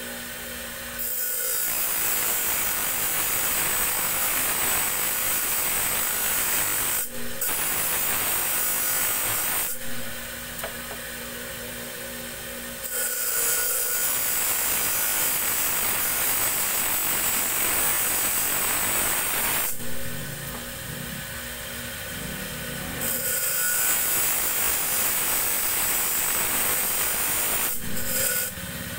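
Steel tari blade being ground and sharpened on a motor-driven grinding wheel: a rough grinding noise in three long spells, with short pauses where only the wheel's steady motor hum remains.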